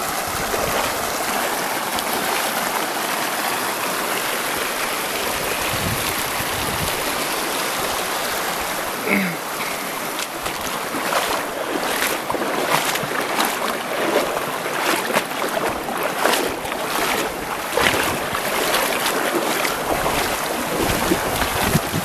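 Shallow river rushing over rock rapids, a steady hiss of moving water. From about halfway it turns choppier, with rough, irregular crackles over the water sound.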